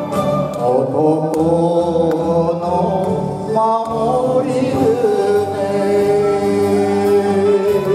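An elderly man sings an enka song into a microphone over backing music, holding one long note through the second half.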